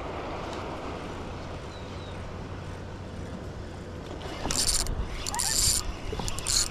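Spinning reel being cranked on a kayak, over steady wind and water noise. From about four and a half seconds in come several short, loud hissing bursts, each about half a second long.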